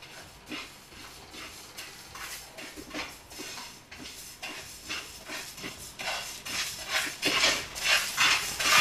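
Kitchen knife scraping and peeling the dry skin off an onion, a run of short scrapes and papery crackles, growing louder near the end.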